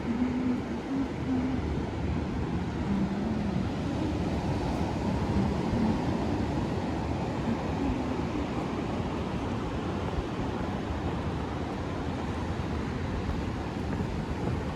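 Ocean surf washing steadily on the beach, with wind on the microphone.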